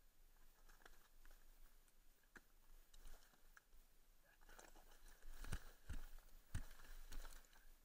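Near silence with scattered faint clicks, then a few louder short knocks about five to seven seconds in; no engine is running.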